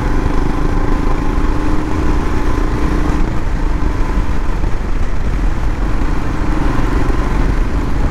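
Single-cylinder Royal Enfield Himalayan motorcycle engine running steadily at street speed, heard from the rider's seat with wind rush on the microphone.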